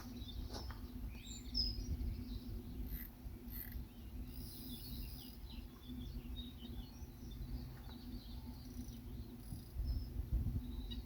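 Small birds chirping and twittering over a low outdoor rumble and a steady low hum.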